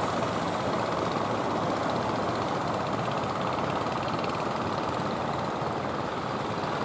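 Steady drone of a wooden fishing boat's engine as it motors past, mixed with the wash of the sea.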